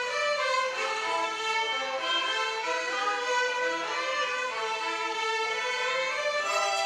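A children's violin ensemble playing a bowed melody together, at a steady level with the notes moving on every half second or so.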